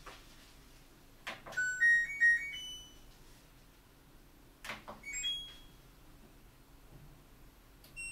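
Front-loading washing machine's control panel: a click, then a short rising run of electronic beeps as it is switched on. A second click with a couple of single beeps follows, and one more beep near the end, as buttons are pressed to set the wash programme.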